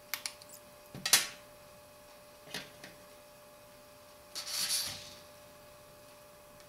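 Small clicks and taps of a screwdriver, screws and phone housing parts being handled while screws go back into the BlackBerry Bold 9700, with the loudest click about a second in and a short scraping rustle around four and a half seconds. A faint steady hum sits underneath.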